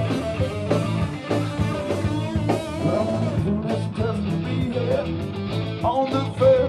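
Live rock band playing: electric guitar over a drum kit's steady beat.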